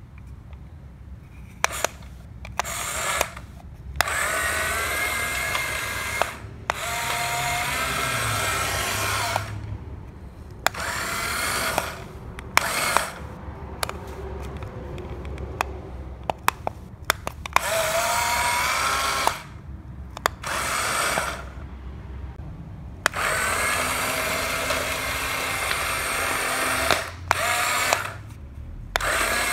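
Electric motor and gears of a corded Lightning McQueen toy car whirring in about ten runs of one to four seconds as it drives, each starting and stopping abruptly, with sharp clicks between runs.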